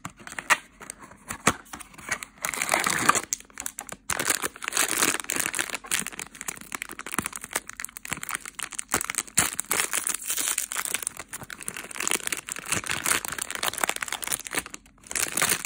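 Foil blind-bag wrapper crinkling loudly as it is handled, torn open and pulled apart, after a few sharp clicks from a cardboard box being opened in the first couple of seconds.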